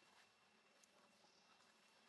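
Near silence: faint, steady background hiss.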